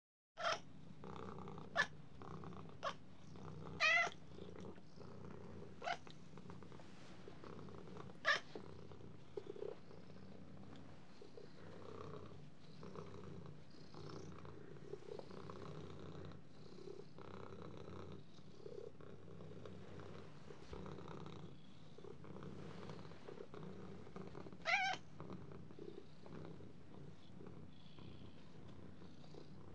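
Domestic cat purring steadily, with a few short, sharp cat calls scattered over it, the loudest a little after the start and about 25 seconds in.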